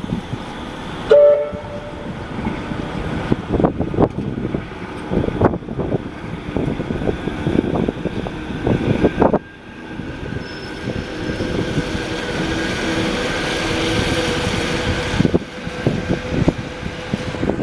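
A rail vehicle running on the track, with frequent irregular knocks from the wheels. The loudest moment is a brief tone about a second in. After a sudden cut about nine seconds in comes a steadier running noise with a faint hum.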